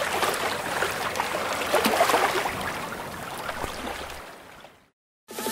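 Water sloshing and splashing with many small crackles, fading out about four seconds in.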